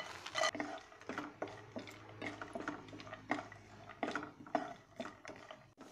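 A spatula stirring peanuts and raisins in a little oil in a nonstick kadai, with irregular clicks and scrapes as the nuts knock against the pan.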